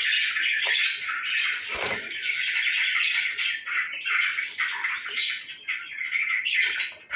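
A small flock of pet parrots chattering and chirping steadily, with many short, shrill calls overlapping. A brief low thump comes about two seconds in.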